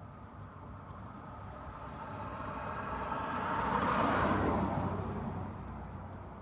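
A passing vehicle: its tyre and engine noise swells to a peak about four seconds in, then fades away.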